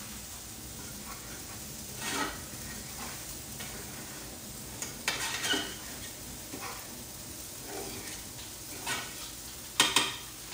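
Food sizzling as it fries in butter in a pan, with a utensil stirring and scraping it every few seconds. A sharper pair of scrapes comes near the end.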